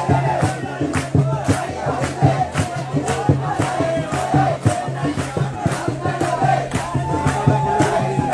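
A crowd singing and chanting to a steady drum beat.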